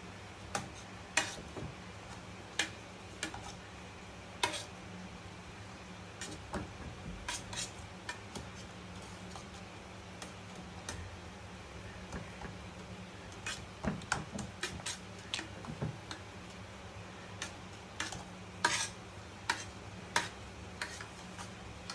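Metal potato masher knocking and scraping against the sides and base of a pressure cooker while mashing boiled vegetables, in irregular clicks and knocks. A steady low hum runs underneath.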